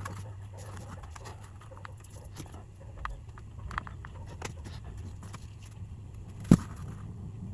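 Scattered light clicks and taps from small parts being handled, with one sharp click about six and a half seconds in, over a steady low hum.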